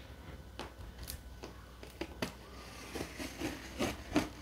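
Small blade slitting the packing tape along a cardboard box's seam: irregular scratches and clicks of the tip catching on the tape and cardboard.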